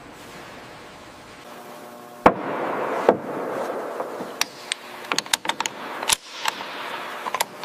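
Assembly-shop work noise: a faint hum, then a sharp knock a little over two seconds in, followed by a steady hiss with scattered clicks and knocks.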